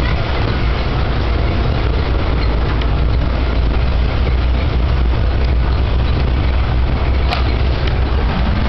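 Steady rumble of engine and road noise heard from inside a moving vehicle.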